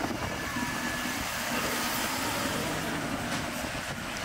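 Claas Axion tractor driving slowly past with its diesel engine running steadily.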